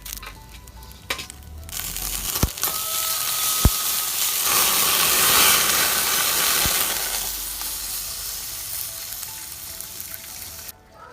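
Loud sizzling hiss of pork skin being singed. It builds about two seconds in, is loudest midway and dies away near the end, with a few sharp knocks along the way.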